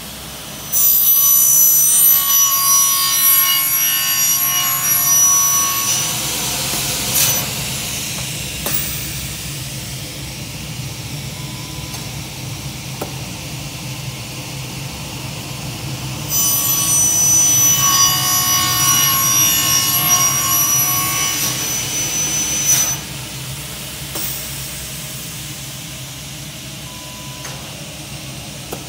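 A circular saw blade on an automatic cutoff saw cutting through a bundle of aluminium profiles twice. Each cut is a loud, shrill, ringing screech lasting about six seconds and ending with a sharp click. Between the cuts the machine runs with a steadier, quieter noise.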